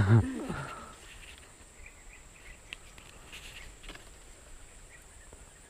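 Quiet outdoor ambience with faint scattered chirps of small animals and a few light clicks.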